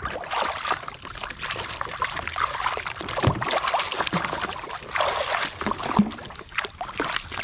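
Muddy, foamy water sloshing and splashing in a plastic basin as a hand swishes a toy airplane through it: a continuous run of small, irregular splashes and gurgles.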